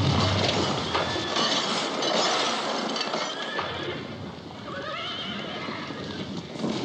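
Film-soundtrack explosion fading away, with a few sharp knocks of falling debris. About five seconds in, a horse whinnies, its call wavering up and down.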